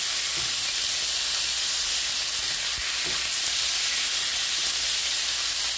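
Chicken breast pieces sizzling in hot oil in a nonstick frying pan, a steady frying hiss, with a couple of soft knocks from the utensil as they are stirred.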